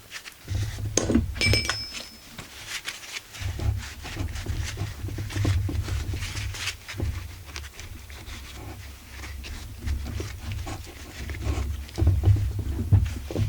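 Small metal chainsaw parts clinking and rattling as they are handled and set down, with many light clicks and knocks and one brief metallic ring about a second and a half in.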